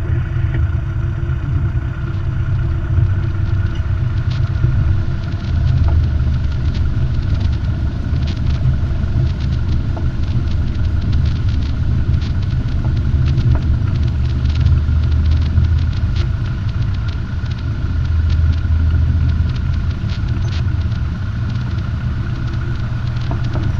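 Piston engine and propeller of a Robin DR400 light aircraft running at low power while taxiing: a steady low drone inside the cockpit.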